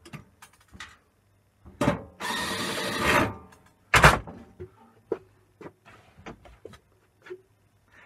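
A cordless drill-driver runs for about a second, working out the small bolts that hold a microwave's turntable motor, among knocks and taps on the metal casing. A loud knock comes just after it, followed by light clicks.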